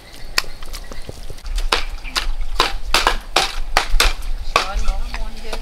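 Cleavers chopping raw chicken on round wooden chopping blocks: several cooks hacking at once, an irregular run of sharp knocks.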